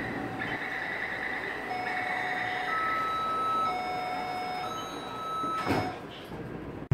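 Taipei Metro train's door-closing warning: electronic tones held about a second each at changing pitches, sounding as the doors are about to shut. The sliding doors close with a short thud near the end.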